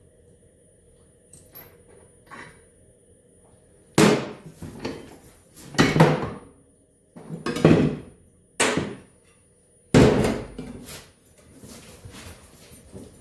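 Hammer blows on metal: two light taps, then about six hard strikes over roughly six seconds, each ringing briefly.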